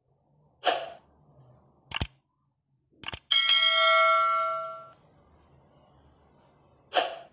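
Intro-animation sound effects: a short whoosh, a couple of sharp clicks, then a bright bell chime that rings for about a second and a half and fades, and a second whoosh near the end.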